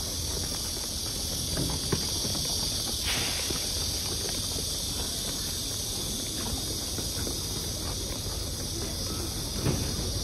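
Steady high hiss of outdoor night ambience. Under it are the low rumble and scattered light clicks of a group walking past a handheld phone.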